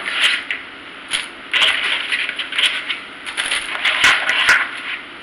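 Lobster tails and shrimp being handled in a plastic bowl: irregular scraping and clattering of shell against plastic, with a couple of sharp clicks about four seconds in.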